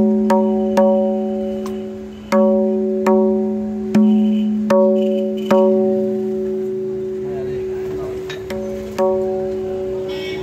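Tabla dayan (the right-hand treble drum) struck with a finger at the edge of its head, ringing out at one clear, steady pitch with strong overtones as the maker tests its tone. About nine strokes come in uneven groups, each dying away slowly, with a pause of about three seconds after the middle.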